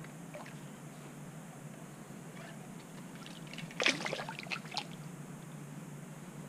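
Brief burst of splashing at the water's surface beside a kayak, about four seconds in, lasting about a second, as a hooked fish is brought alongside and grabbed by hand.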